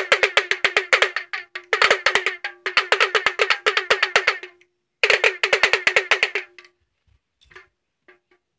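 Fast drumming on a drum with a definite pitch, about seven strikes a second, in runs with short breaks. It stops abruptly about two-thirds of the way through, and a few faint clicks follow.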